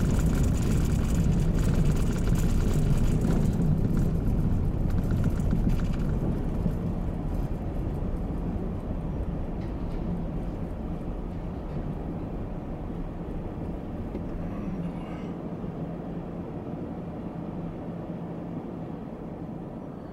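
Car tyres rumbling and clicking over the steel-grated boarding ramp of a car ferry, heard from inside the car, under a low steady engine hum. The rumble and clicks fade over the first several seconds as the car slows to a crawl, leaving mostly the quieter hum.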